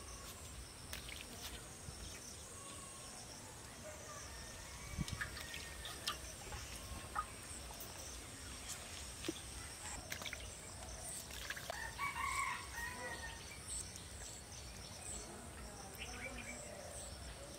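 A rooster crows once, about twelve seconds in, over a steady high-pitched insect drone.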